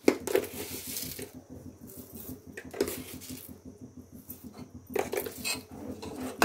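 Metal spoon stirring thick rice pudding in a steel pot, scraping and clinking against the pot's sides in irregular bouts.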